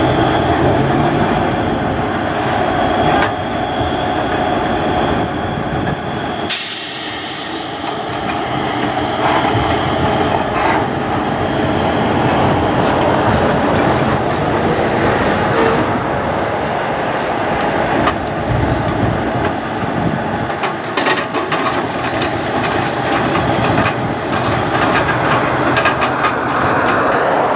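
Self-propelled maintenance-of-way train working on the track: its engine runs steadily, with a steady high whine and scattered clicks and clanks from the wheels and cars. The sound changes abruptly about six and a half seconds in.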